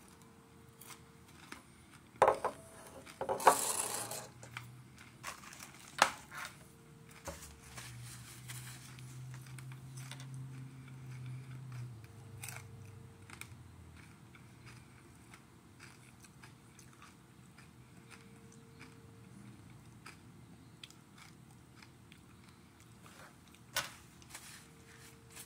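Mouth chewing a crunchy chili-pepper snack, with sharp clicks about two seconds in and a short plastic crackle just after. A low steady hum runs for a few seconds in the middle.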